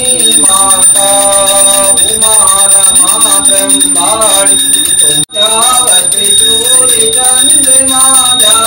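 A puja hand bell ringing on and on over a sung devotional melody. The sound drops out for an instant about five seconds in.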